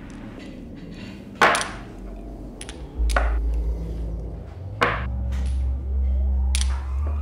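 Sharp, ringing knocks about every one and three-quarter seconds, four in all, over a deep low drone that comes in about three seconds in.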